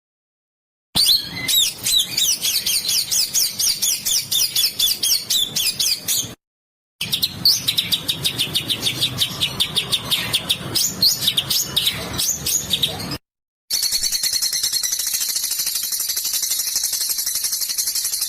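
Songbird song of rapid, harsh repeated notes, in three spliced clips with short silent cuts between them. The last clip is a dense, even buzzing rattle.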